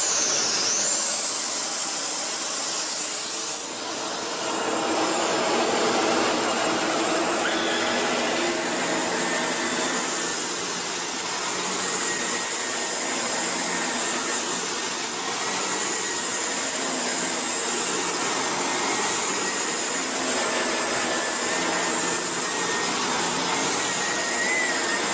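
Shark NV501 Rotator Professional upright vacuum running: a loud, steady motor noise with a high whine that dips and then settles in the first second.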